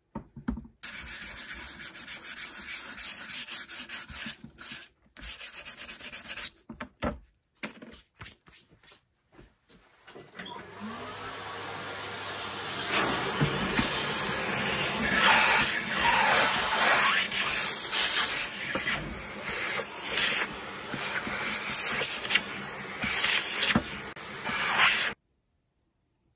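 Hand sanding of filler on a fiberglass model-glider fuselage with a sanding block. Quick, stop-start rubbing strokes for the first ten seconds, then steadier continuous sanding that swells and eases, stopping abruptly near the end.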